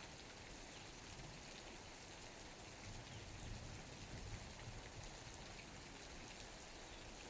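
Steady rain falling, an even hiss with fine patter of individual drops. A faint low rumble swells briefly in the middle.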